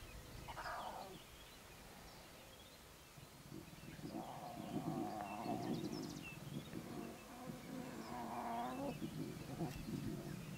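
Lion cubs growling as they jostle and fight each other to suckle. There are two drawn-out growling bouts, one about four seconds in and another about eight seconds in.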